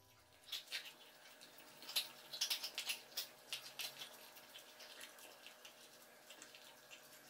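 Domestic cat eating from a bowl: quick, irregular wet mouth clicks of licking and chewing, busiest in the first few seconds and fainter toward the end.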